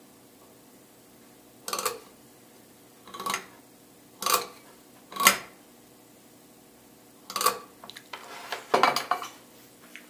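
Old metal foot switch clacking as its pedal is pressed and released to work the rewired switch, five separate clacks a second or so apart, then a quicker run of clacks near the end.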